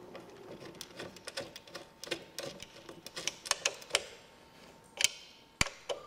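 Small screws being driven by hand into a treadmill's plastic controller leg: a quick, irregular run of ticks and clicks from the tool and screw, then a couple of sharper clicks about five seconds in.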